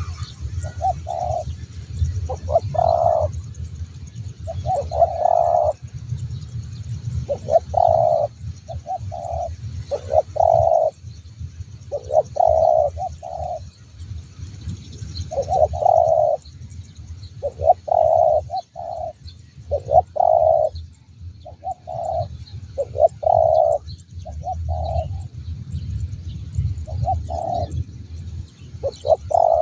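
Spotted dove cooing its song over and over, short phrases of two or three low, hollow notes about every two to three seconds, over a steady low rumble.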